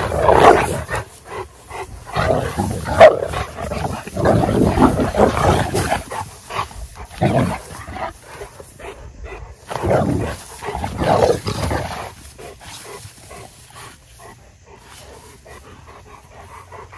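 Cane Corso and pit bull dogs growling in irregular bursts during rough play-fighting, dying down after about twelve seconds.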